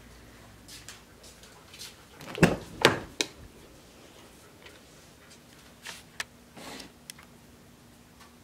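A car door unlatching and being opened: two sharp clunks about half a second apart, a couple of seconds in, then a click. After that come scattered light clicks and rustles of handling inside the car.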